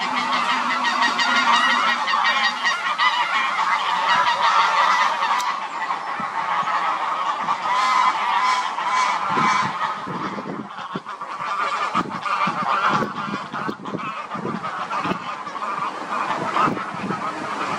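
A flock of geese honking on the water, many calls overlapping continuously.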